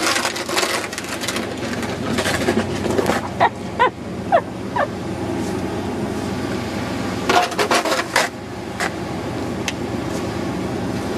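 Snow shovel scraping over snow-covered stone steps in a run of strokes during the first few seconds and again about seven to eight seconds in, with a few short, high squeaks between them.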